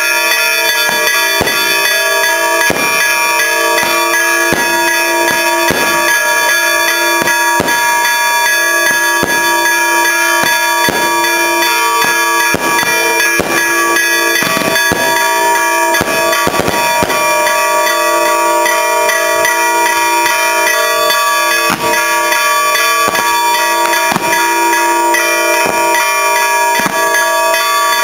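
Church bells ringing continuously in celebration of the Easter Resurrection, their tones overlapping and sustained, with irregular sharp cracks throughout.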